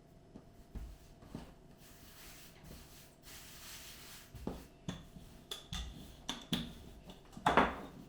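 Hands pressing and shaping a round of bread dough on a work surface: soft rubbing, then a series of light knocks and thumps, the loudest near the end.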